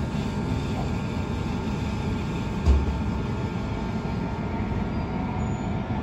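Electric suburban train running along the line, heard from inside the carriage: a steady rumble of wheels on the track, with one short dull thump about two and a half seconds in.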